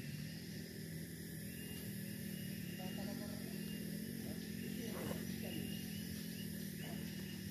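Daihatsu Gran Max pickup's engine idling steadily while the truck stands still, with faint voices and short high chirps over it.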